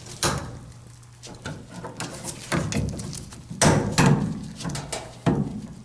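A few separate knocks and clatters of tools and parts being handled while a washing machine's drain pump is worked loose from its housing.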